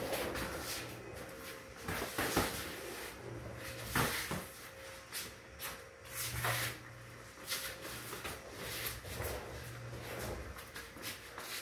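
Kickboxing sparring: irregular thuds of gloved punches and kicks landing, with feet shuffling on a concrete floor and a few sharper hits about two, four and six and a half seconds in.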